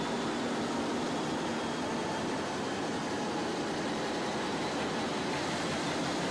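Diesel-electric locomotive's diesel engine idling, a steady mechanical drone with a faint hum running through it.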